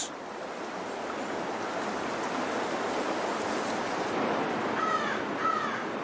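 A creek rushing steadily, with a bird giving two short calls close together near the end.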